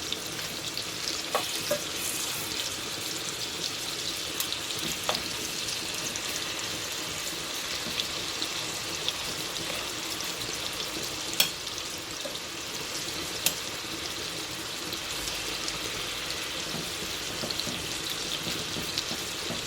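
Seasoned chicken cubes searing in hot olive oil and butter: a steady frying sizzle with scattered pops and crackles, the sharpest about eleven seconds in.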